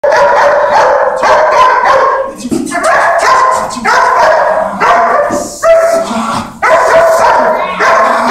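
Dog barking rapidly and continuously, about two barks a second, in agitation barking at a helper during protection bite-work training.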